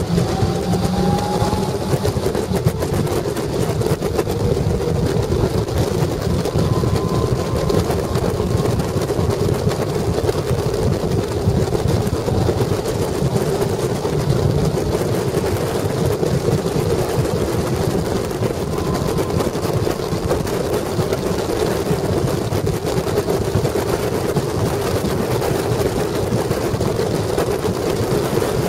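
Caterham Seven's 1.6-litre Ford Sigma four-cylinder engine running under load at track speed, heard from inside the open cockpit with wind rushing over the microphone. The engine note climbs right at the start.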